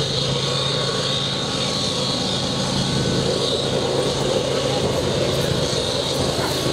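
Steady, even rumble of an approaching diesel-hauled freight train (BNSF locomotive at the head of a stack train) still some way down the line, with a low steady hum under it.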